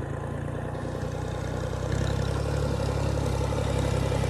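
Diesel engine of an old combine harvester running with a steady, rapid low throb and mechanical clatter, getting louder, with a step up about two seconds in.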